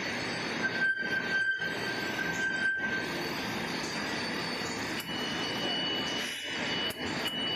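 Biscuit packaging line running: a steady mechanical clatter and hiss of conveyors and packing machines, with a high squealing tone about a second in that holds for about two seconds and a higher squeal from about five seconds on.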